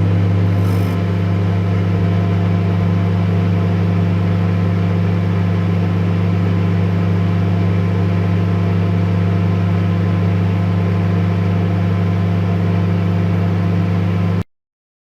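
Microwave oven running: a loud, steady low hum that stops abruptly near the end.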